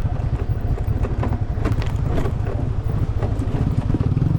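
Motorbike engine running under way, a steady low rumble that gets a little stronger near the end, with scattered clicks and knocks from the ride.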